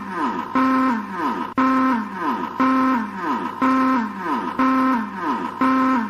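Synthesized emergency-alert alarm tone: a buzzy held tone of many stacked pitches that then slides downward, repeating about once a second.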